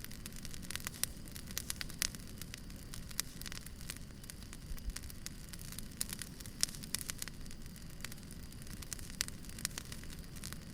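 Firewood burning: irregular crackles and pops over a low, steady rumble.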